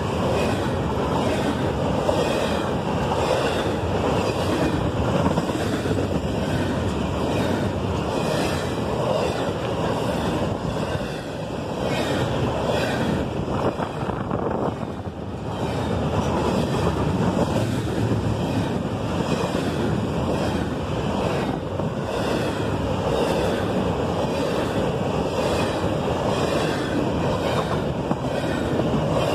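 Double-stack intermodal freight train passing at speed: a steady rumble and rattle of steel wheels on the rails and the well cars, with a regular clicking from the wheels.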